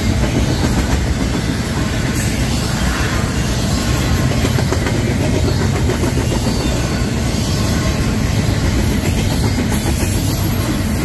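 Norfolk Southern freight train cars rolling past, a steady loud rumble and clatter of steel wheels on the rails.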